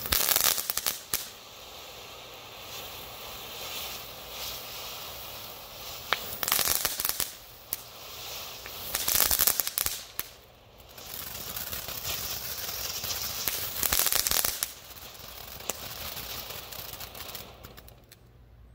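Showtime Fireworks Funky Fountain, a consumer ground fountain firework, spraying sparks with a steady hiss broken by several loud spells of crackling. It dies down near the end as the fountain burns out.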